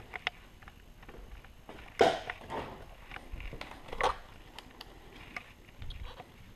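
Losi 5ive-T two-stroke engine's recoil starter pulled twice, about two seconds apart, each a short rasping whirr, with scattered small clicks between; the engine does not catch, in keeping with its hard-starting fault.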